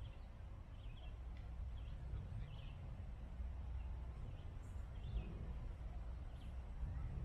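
Small birds chirping now and then in short high calls over a steady low rumble of outdoor air.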